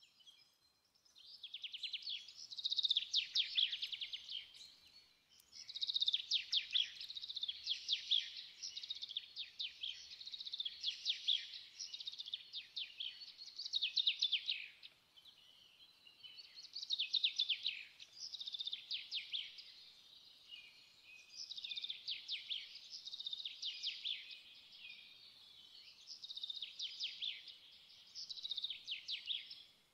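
A small songbird singing: repeated phrases of rapid, high trills, each a few seconds long with short pauses between.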